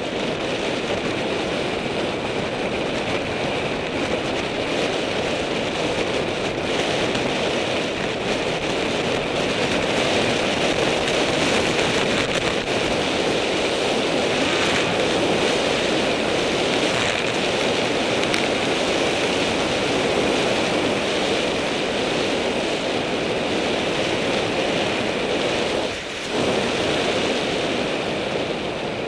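Steady rush of wind buffeting the microphone, mixed with tyre noise on asphalt, as a bicycle coasts downhill at speed. It dips briefly near the end.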